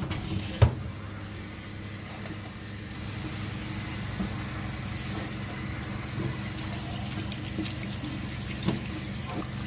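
Liquid running in a steady stream into a stainless steel bowl of cut-up raw chicken, with one sharp knock about half a second in.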